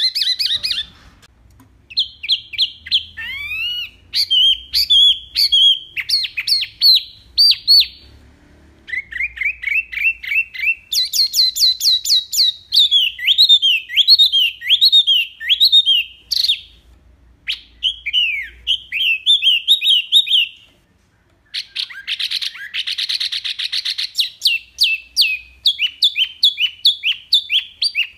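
Wambi mini songbird singing its rapid-fire 'tembakan' song: fast runs of sharp chirps and quick rising and falling whistled notes, in phrases broken by short pauses. A harsh, buzzy rattle comes about three-quarters of the way through.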